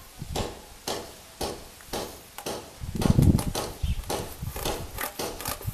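Knife cutting through an old car tire's rubber sidewall in short, irregular strokes, with gravel crunching as the tire and feet shift on it. A heavier thump comes about three seconds in, followed by a quicker run of crunching strokes.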